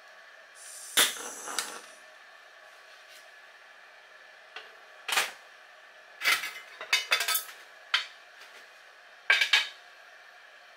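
Light metal clinks and clatter in a few separate bursts, as of a wire grill net being handled and set down on a ceramic shichirin. A short scrape ending in a sharp click comes about a second in.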